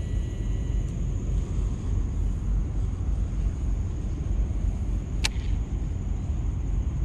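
Wind buffeting the microphone, a steady low rumble, with one sharp click about five seconds in.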